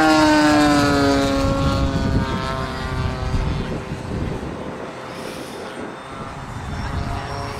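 Twin 80 mm electric ducted fans of an RC A-10 Warthog jet whining in flight, the whine falling in pitch over the first two seconds and then fading, over a low rumble.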